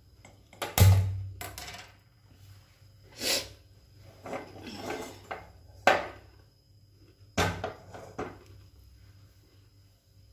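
A heavy black iron kadai knocking and clanking against the steel pan support of a gas stove as it is lifted off and set back while the burner is lit. The loudest knock comes about a second in, with sharper clanks near the middle and later on.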